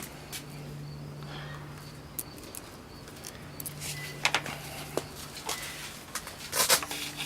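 Small plastic clicks and knocks of a scooter turn-signal bulb being worked out of its housing, a few sharper ones in the second half, over a steady low hum.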